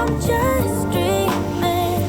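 Pop song played back through HIFIMAN Edition XV open-back headphones and picked up by microphones: a wavering melodic lead over a steady beat.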